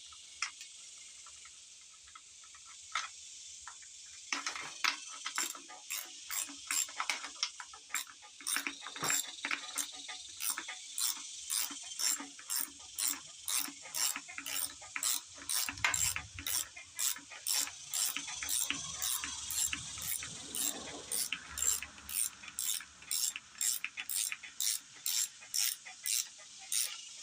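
Hand ratchet clicking in short repeated strokes, about two a second from about four seconds in, working a stubborn shouldered fuel-pump bolt loose on a Dodge 360 V8.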